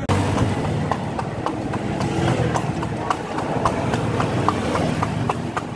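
Hooves of a horse pulling a cart clip-clopping steadily on asphalt, about three hoofbeats a second, over a low rumble.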